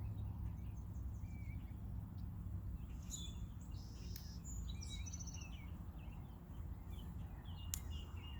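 Small birds chirping and trilling in short calls over a steady low outdoor rumble, with a couple of sharp clicks.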